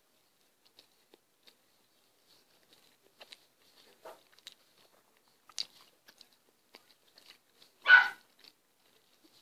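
A grilled sandwich being bitten and chewed with the mouth close to the microphone: scattered soft crunches and small mouth clicks. About eight seconds in there is a single short, loud sound, much louder than the chewing.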